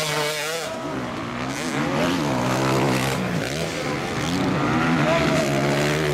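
Motocross bike engines revving hard, their pitch rising and falling again and again as the throttle is worked over jumps and through turns, with more than one bike heard at once.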